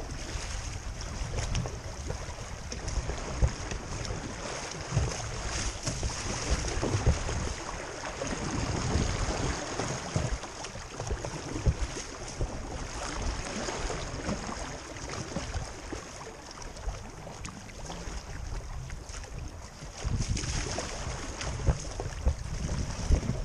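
Moving creek water rushing steadily around an open canoe's hull, with paddle splashes now and then. Wind rumbles low on the microphone.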